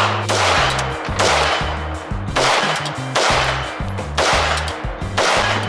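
AR-15 rifle in 5.56 fired in a slow string, a sharp shot about once a second, each with a short echoing tail. Background music with a bass line runs underneath.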